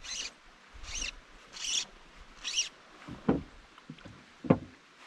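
Drift boat oars working the water: short splashing swishes about once a second, then two sharp knocks of the oars, about three and four and a half seconds in, the second the louder.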